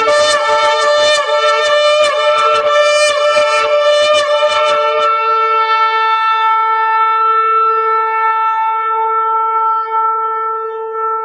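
A blown horn sounding one long, loud held note. For about the first five seconds it is rough and fluttering, then it settles into a steady, clear tone that carries on to the end.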